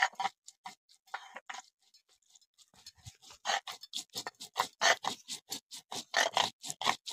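Cumin seeds being crushed on a sil-nora, a flat grinding stone worked with a hand-held stone roller: rhythmic stone-on-stone scraping and crunching strokes. They are sparse at first and settle into about three strokes a second from about three seconds in.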